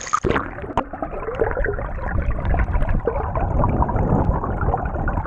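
Creek rapids heard through an action camera held underwater: a brief splash as it goes under, then a muffled, dense rushing and bubbling of current over the rocks, with many small clicks.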